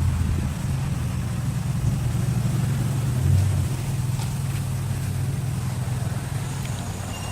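Steady low engine hum of a motor vehicle running, swelling briefly a little past three seconds in.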